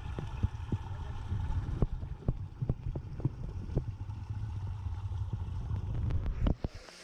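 Muffled water rumble picked up by a camera held underwater in a waterfall pool, steady and low, with irregular sharp clicks and knocks. The rumble cuts off suddenly near the end.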